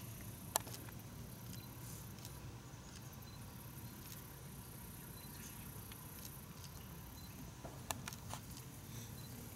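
Faint steady background noise, with one sharp click about half a second in and a short cluster of light clicks near the end.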